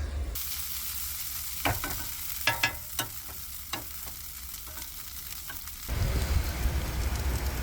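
Hash browns sizzling in a frying pan, a steady high hiss with a few sharp clicks over the first half. About six seconds in, a low rumble takes over.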